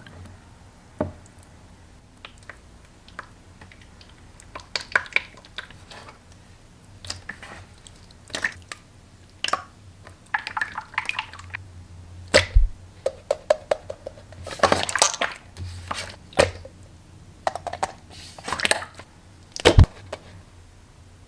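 Slime being handled: irregular short wet squishes, pops and crackles, with a couple of louder squelches near the middle and near the end.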